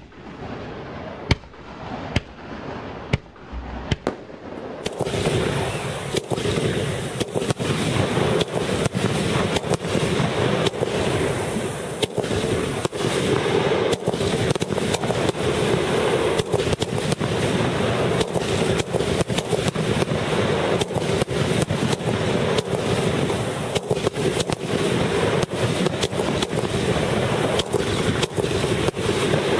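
Aerial fireworks: a few separate launches and bangs, then from about five seconds in a dense, continuous rapid-fire barrage of bursts.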